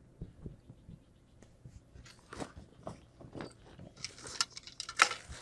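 Packaging being handled and opened: scattered crinkles and rustles that grow denser near the end, with one sharp crackle about five seconds in.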